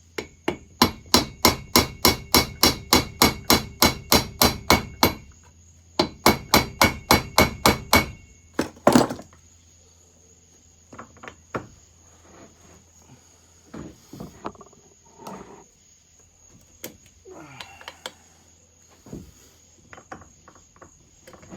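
Hammer tapping on a screwdriver to shock loose a seized ignition-coil screw on a Pioneer Farmsaw chainsaw: quick, even metallic taps about four a second in two long runs, then one harder strike. Light clicks and handling noises follow.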